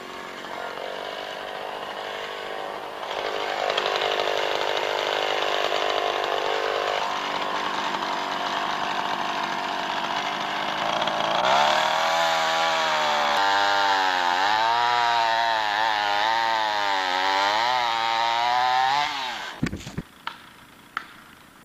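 Gas chainsaw with a long bar cutting into the base of a large tree trunk during a felling cut. The engine runs under load and rises and dips in speed, then shuts off about two seconds before the end. A few sharp knocks follow near the end, as a hammer drives felling wedges into the cut.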